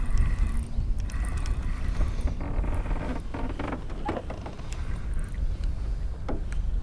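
Spinning reel being cranked to reel in a hooked fish, its handle and gears clicking and creaking irregularly, over a steady low wind rumble on the microphone.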